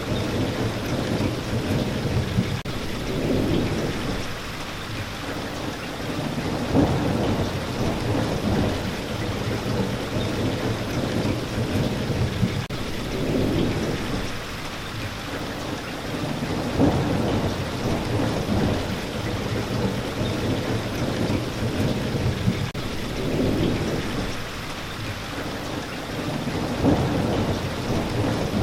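Steady rain, with a low rumble that swells and fades every few seconds.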